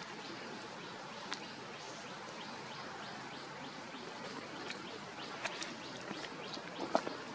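Outdoor woodland ambience: a steady background hiss with scattered faint clicks and rustles, a few sharper ones in the last couple of seconds.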